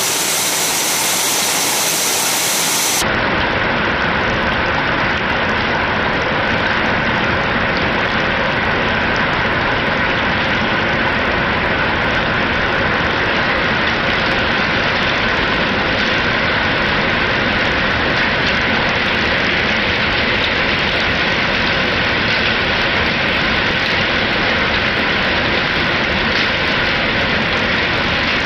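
Heavy rain falling steadily, a loud, even hiss that does not let up.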